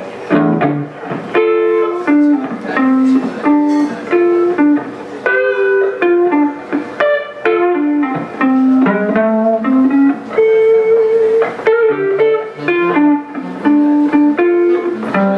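Hollow-body electric guitar played solo, picking out a single-note melody with one note held longer about ten seconds in.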